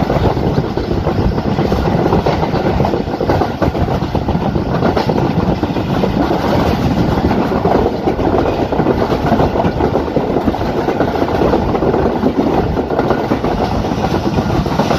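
Pakistan Express passenger train heard from aboard while running along the track: a loud, steady rumble and rattle of the coaches and wheels on the rails.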